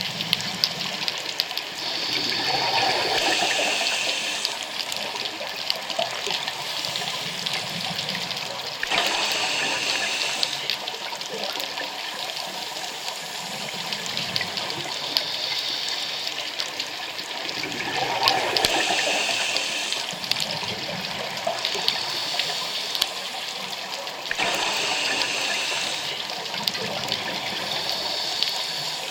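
Scuba diver breathing underwater through a regulator: a hiss on each breath in, then a rush of exhaled bubbles. The cycle repeats every few seconds.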